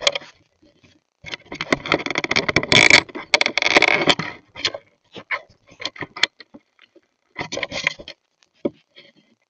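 An animal rubbing and nosing against a trail camera's housing, right at the microphone: a few seconds of close scraping and rustling, then short scrapes and knocks, with one more brief flurry near the end.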